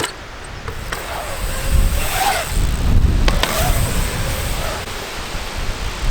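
Strong gusting wind buffeting the microphone, a heavy rumbling roar that swells about a second and a half in. A few sharp knocks come through it.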